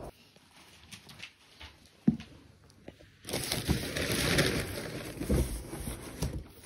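French bulldog puppy snuffling and grunting as it squeezes under a sofa. A single sharp knock comes about two seconds in, and louder snuffling and rustling runs from about three seconds in.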